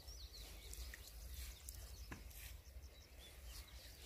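Quiet outdoor ambience with faint, scattered bird chirps over a low steady rumble, and one faint tick about two seconds in.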